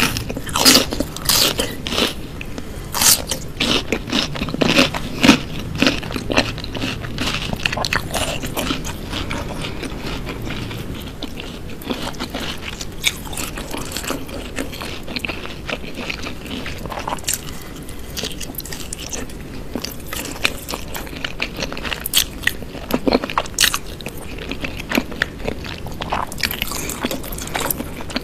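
Close-miked eating: crisp crunching bites and chewing of raw vegetables and fried pieces dipped in peanut sauce. The crunches come thickest over the first several seconds, then in scattered clusters between stretches of softer, wet chewing.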